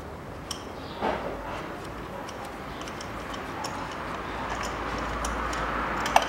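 Ratchet wrench clicking in short, uneven runs while loosening a spark plug, with a knock about a second in and a sharper click near the end.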